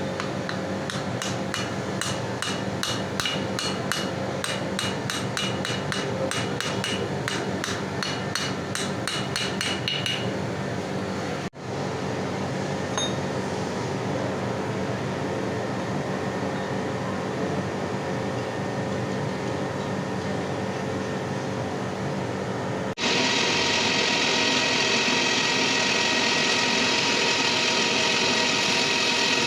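Metal-machining machine running with a steady drone, with sharp regular ticks about three times a second for the first ten seconds. Near the end it is louder, with a steady high whine made of several fixed tones.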